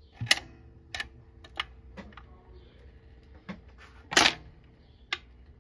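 KLH Model 24 record changer's mechanism cycling after its control lever is worked: a string of uneven mechanical clicks and clunks, the loudest and longest about four seconds in, over a faint steady hum.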